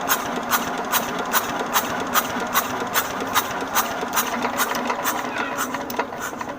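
Old engine running slowly and evenly, with a sharp click on each stroke, about two and a half a second, over a steady hum.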